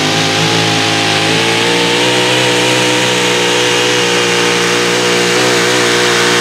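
Supercharged engine of a super modified four-wheel-drive pulling truck running hard at full throttle under the load of the sled. Its loud engine note climbs a little about two seconds in, then holds high and steady.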